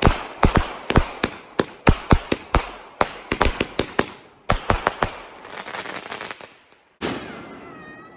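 Consumer fireworks going off in a rapid string of sharp bangs, several a second, then a short lull and one last bang near the end that fades away.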